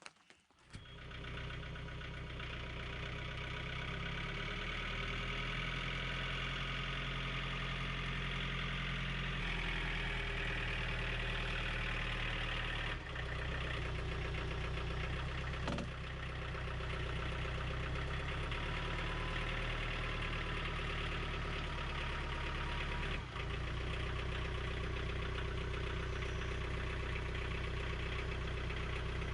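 An engine running steadily at idle. It comes in abruptly about a second in and dips briefly twice.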